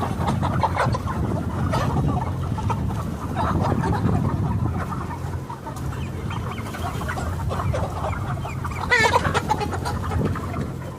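A flock of chickens clucking, many short calls overlapping, over a steady low hum. One louder, drawn-out squawk stands out about nine seconds in.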